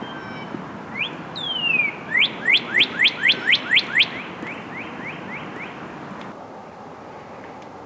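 Northern cardinal singing: a long downslurred whistle, then a quick run of about eight loud slurred chirp notes that trail off into softer repeats.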